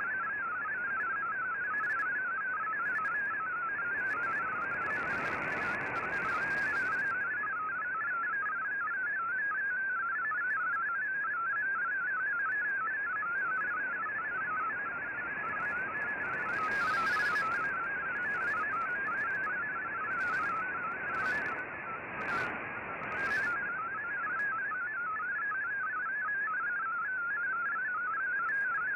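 MFSK digital-text signal from a shortwave broadcast, played through an Icom IC-R8600 receiver in AM: a rapid, steady warble of stepping tones in the upper-middle pitch range. It sits over a hiss of shortwave band noise, with a few brief crackles.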